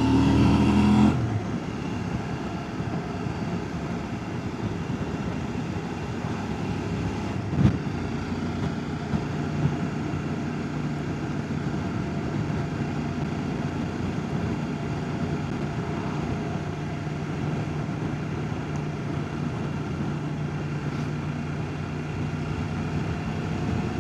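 CF Moto 800 MTX parallel-twin engine running steadily, louder for about the first second, with a single sharp knock about seven seconds in.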